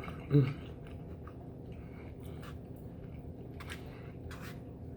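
A person chewing food close to the microphone, with a short hummed 'mm' about a third of a second in, then a run of soft wet mouth clicks and crackles.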